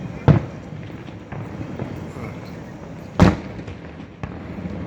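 Aerial fireworks bursting: two loud booms about three seconds apart, with a few fainter pops between and after them.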